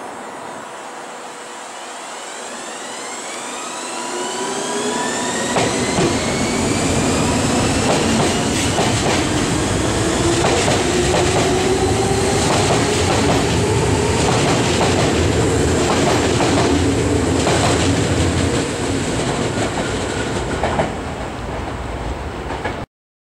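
Nagoya Municipal Subway 3000-series electric train pulling away and accelerating, its chopper-controlled traction motors giving a whine of several tones that rise in pitch. As the cars pass close by, a loud running rumble sets in with repeated clacks of wheels over rail joints. The sound cuts off suddenly near the end.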